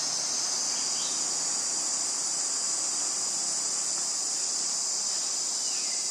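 A steady, high-pitched drone from a chorus of insects, holding an even level throughout.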